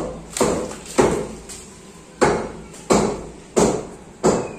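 Hammer blows on a concrete kitchen slab, chipping away the old surface: about six sharp strikes at uneven intervals, each with a short ringing decay.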